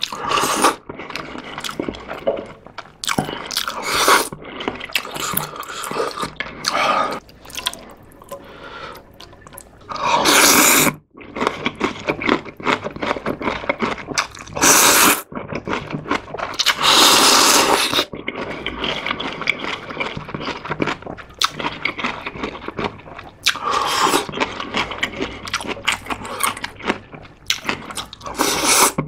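Close-miked eating of soupy instant ramyeon: several long slurps of noodles and broth, a second or so each, between bouts of wet chewing.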